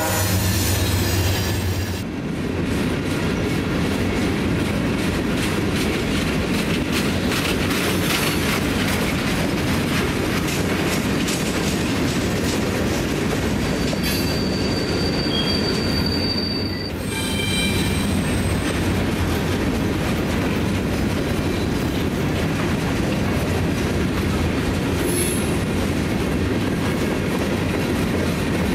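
Freight train's open-top hopper cars rolling past, with a steady rumble and clatter of steel wheels on the rails. A thin, high wheel squeal is held for a few seconds around the middle.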